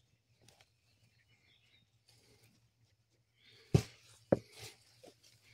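Hands digging through loose soil in a potato grow tote: faint rustling, then two sharp knocks about half a second apart near the end, followed by a rustle and crackle of soil being scooped.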